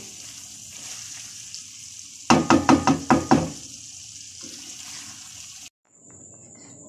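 Okra curry sizzling in a frying pan as a wooden spoon stirs it, with a quick run of about seven knocks of the spoon against the pan a little over two seconds in. Near the end the sound cuts off to quiet room tone.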